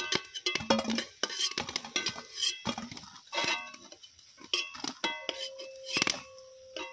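Metal spatula clinking and scraping against a steel wok and plate as fried pakoras are lifted out and set on the plate: a string of sharp metallic clinks, several ringing on briefly.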